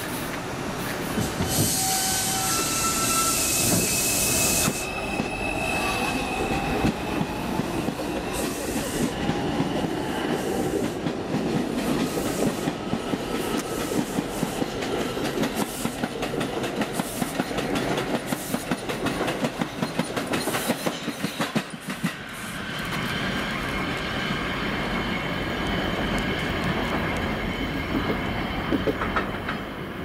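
Bombardier R142 subway train with Alstom ONIX AC traction motors pulling away, the motor whine stepping up in pitch over the first few seconds. Then the cars pass close by with wheels clacking rapidly over rail joints, and after about 22 seconds a new stretch of steady motor whine comes in as a train passes again.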